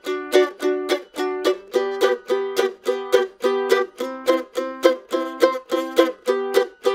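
Eastman MD615 mandolin, solid spruce top with maple back and sides, played in short chopped bluegrass chords: a steady rhythm of sharp, quickly damped strums with the chord changing every few strokes.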